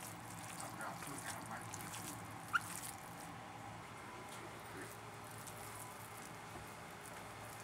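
Faint wet squishing and patting of a bare hand kneading a fishcake mix of flaked mackerel, egg and flour in a glass bowl, busiest in the first three seconds. A brief high rising squeak stands out about two and a half seconds in.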